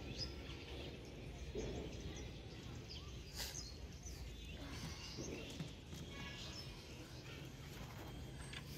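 Faint outdoor ambience: scattered small bird chirps over a low steady background hum, with one sharp tick about three and a half seconds in.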